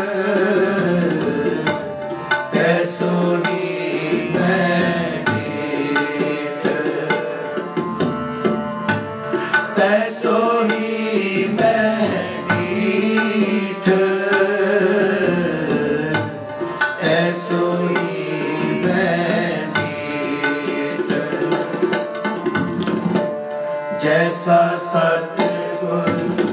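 Sikh kirtan: voices sing a gliding melody over two harmoniums' steady reedy chords, with tabla playing a steady rhythm.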